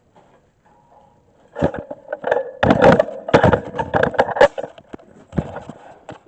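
A folding bed-frame base being handled, giving a run of irregular clattering knocks and scrapes for a few seconds, starting about a second and a half in.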